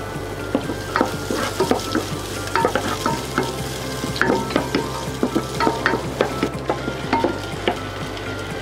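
Garlic and onion sautéing in hot oil in a pan: a steady sizzle broken by frequent sharp scrapes and taps of a wooden spatula stirring.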